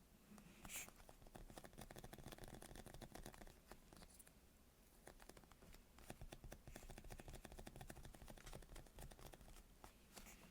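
Faint handling of a soft foam squishy toy: a rapid patter of tiny crackling clicks as it is squeezed and worked by the fingers, easing off briefly about four seconds in before starting again.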